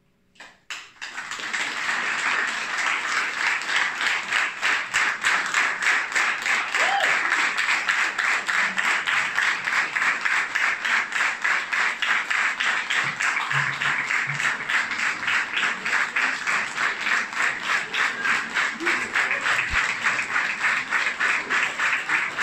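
Audience applause breaking out at the end of a choir song: a few scattered claps about half a second in, then a full round of clapping that soon settles into clapping in unison, about three claps a second.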